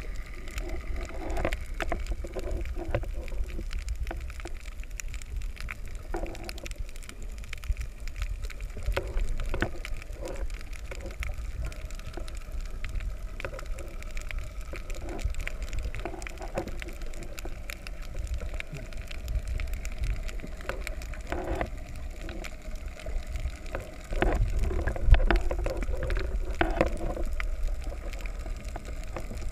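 Muffled underwater water noise picked up through a submerged camera housing: a steady low rumble of moving water with scattered small clicks and crackles. The rumble grows louder about 24 seconds in.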